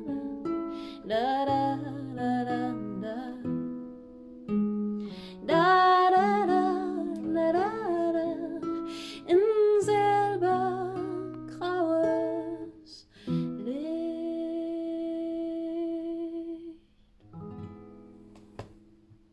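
A voice sings or hums a wordless melody over plucked strings as a song's outro. It holds one long final note about two-thirds of the way through, then the music dies away.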